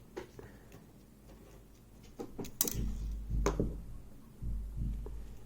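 Small clicks and taps of hands and tools working on a small metal lock, with dull low thumps and a couple of sharper clicks from about two and a half seconds in.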